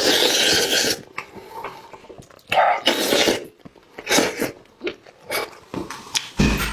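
Close-miked mouth sounds of someone eating, in irregular noisy bursts, with a low thump near the end.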